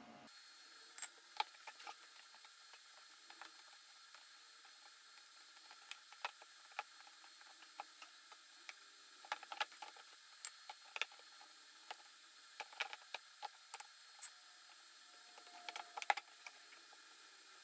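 Faint, scattered clicks and light taps of a metal pipe and hand tools against a plastic trash can as the pipe is worked into a hole near its base.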